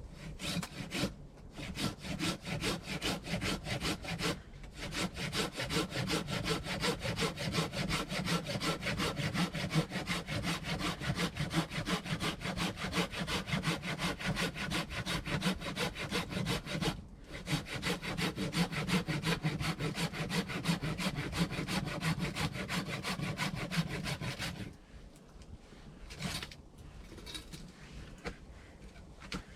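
Hand saw cutting through a log in quick, even back-and-forth strokes. There are a few short pauses, and the sawing stops about 25 seconds in.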